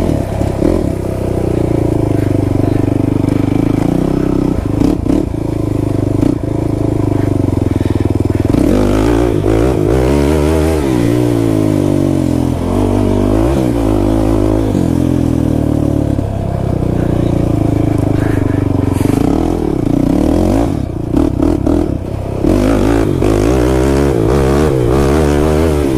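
Kawasaki KFX 450R quad's single-cylinder four-stroke engine running hard under load, the revs rising and falling again and again with the throttle. A few sharp knocks and rattles break in along the way.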